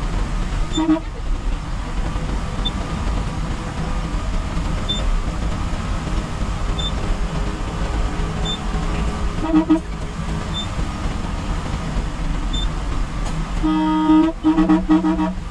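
Bus engine and road noise running steadily inside the driver's cab, with short horn toots about a second in and near the middle, and several quick toots in a row near the end.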